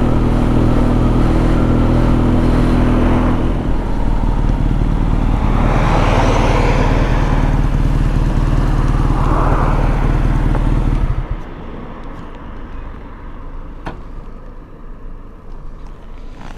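BMW R nineT's air/oil-cooled boxer twin running at low speed as the bike slows to pull over. Its note drops a little about three and a half seconds in. About eleven seconds in the engine is switched off and stops abruptly, leaving quieter street sound and a couple of faint clicks.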